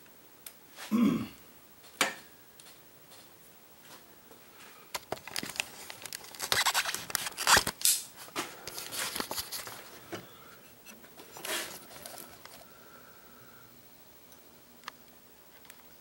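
Handling noise: rustling, scraping and clicking of hands and a handheld camera against wiring and plastic in a car's engine bay, busiest in a stretch of several seconds mid-way, with a short falling tone about a second in and a single click soon after.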